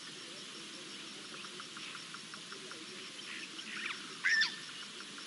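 Wild bush sounds: a thin, high insect trill and a fast run of faint ticking notes, then one loud, sharp bird call about four seconds in.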